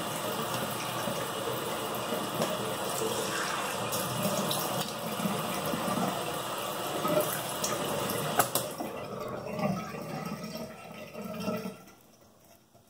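Bathroom tap running into the sink, with splashing as hands scoop water onto the face. The water sound cuts off near the end.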